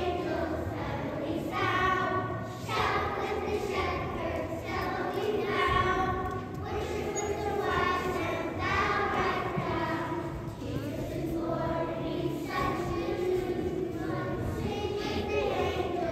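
A young children's choir singing a song together.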